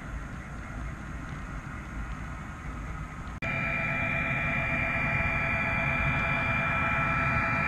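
Low, even rumble of an HO-scale model train running on its track. About three seconds in it cuts abruptly to a louder, steady chord of held tones: ambient background music.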